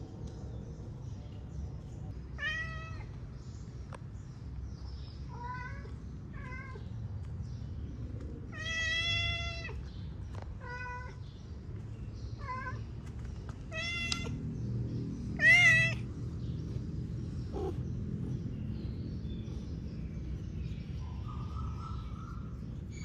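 A cat meowing about eight times in short separate calls, one longer drawn-out meow about nine seconds in and the loudest about fifteen seconds in.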